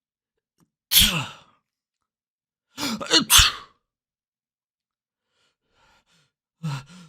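Human sneezes: a single sneeze about a second in, then a quick run of two or three sneezes around three seconds, and another starting just before the end.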